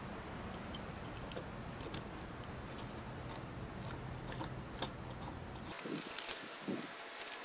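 Faint scattered clicks and light taps from hands handling a brass hose spigot and small hardware against a concrete block wall, with a denser run of sharp clicks about six seconds in. A low steady hum sits beneath.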